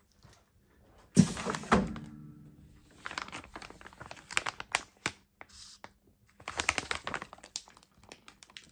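Impulse bag sealer's jaw clamping shut on a clear plastic bag with a sharp clack and a brief hum about a second in, then opening again. After that the plastic bag crinkles irregularly as it is handled.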